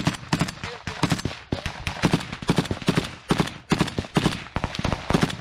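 Rifle fired close by, many shots in quick, irregular succession.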